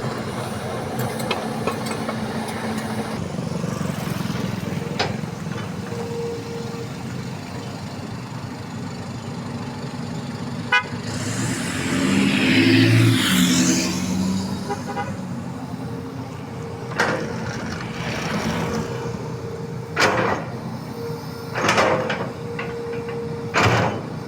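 Diesel engine of a Hitachi hydraulic excavator running steadily. Midway there is a louder rushing passage lasting about two seconds, and near the end come four short knocks.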